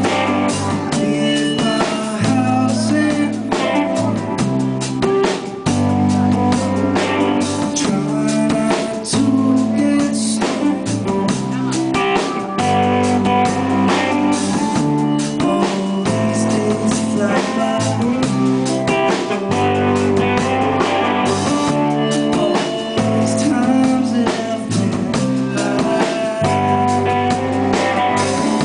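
A live band playing electric guitar, bass guitar and drum kit.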